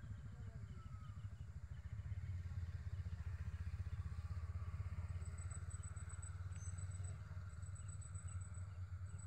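A small motorcycle engine idling with a steady low throb, a little louder from about two seconds in.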